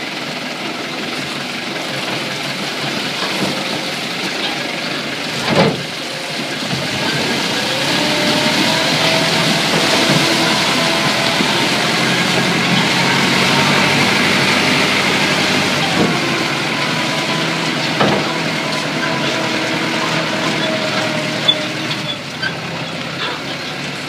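Farm tractor engine running as it drives over a rough dirt track, getting louder in the middle stretch, with a few sharp knocks along the way.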